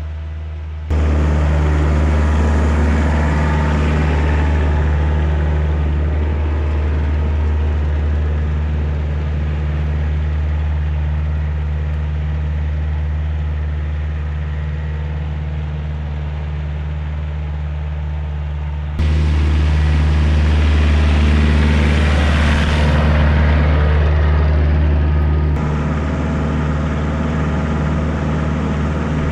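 Kioti DK40se tractor's diesel engine running steadily, a deep even hum. The sound cuts in louder about a second in, steps up again about two-thirds of the way through, and drops back a little near the end.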